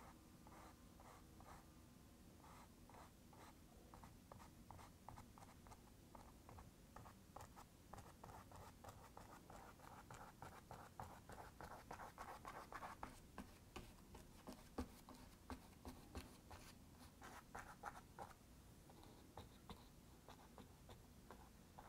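Faint scratchy strokes of a paintbrush on canvas, short and quick at about two or three a second, a little louder in the middle.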